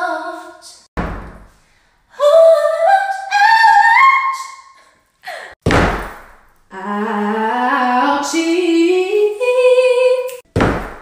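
A woman singing short unaccompanied phrases, each climbing note by note, in imitation of pop singers. Three dull, heavy thumps break in between the phrases, about a second in, near the middle and near the end.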